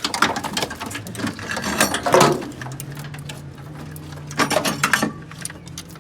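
Metal tools and engine parts clicking and clattering in quick, irregular bursts, with a steady low hum starting about two seconds in.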